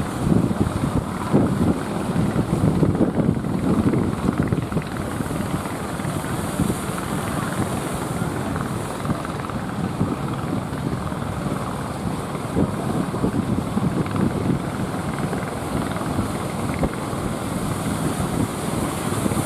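Heavy sea surf breaking, with wind buffeting the microphone; gustier and louder for the first few seconds, then a steady rush.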